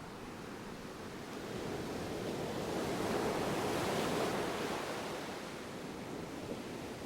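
Ocean surf: a steady wash of waves, with one wave swelling up and breaking about midway before easing back.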